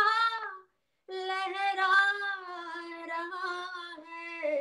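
A woman singing a devotional song alone, with no accompaniment. One phrase ends about half a second in; after a short silent gap she holds a long, ornamented line whose pitch slides and wavers.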